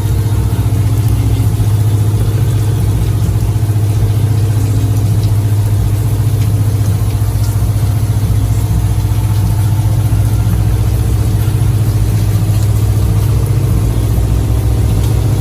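Motor boat's engine running at a steady speed, a constant low hum with no change in pitch.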